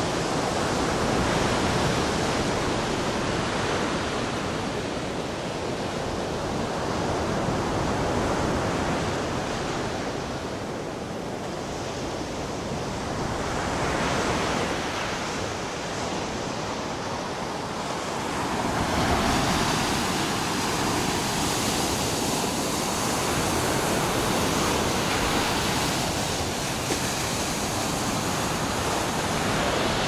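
Baltic Sea surf breaking and washing onto a sandy beach: a steady rush that swells and eases every few seconds.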